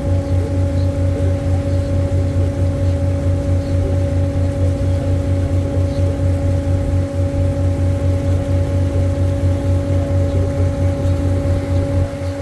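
River cruise boat's engine running steadily: a loud low hum with a fast, even throb and a few steady tones above it, a little quieter near the end.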